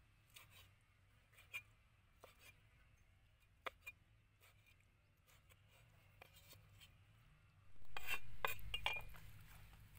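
Cleaver blade tapping and knocking on a wooden chopping block while slicing pork intestine, a scattered tick every second or so. About eight seconds in comes a louder stretch of scraping and knocking as the cut pieces are gathered off the board.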